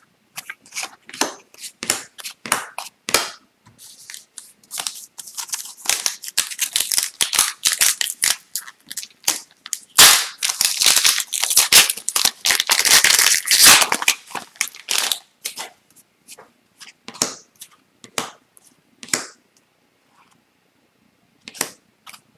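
Trading card packs being torn open and handled: wrappers crinkling and tearing and cards snapping against each other in a dense run of sharp crackles from about four to fifteen seconds in, then scattered single snaps.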